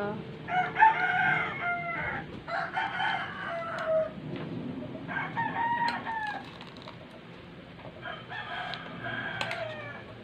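Rooster crowing repeatedly: four long crows a couple of seconds apart.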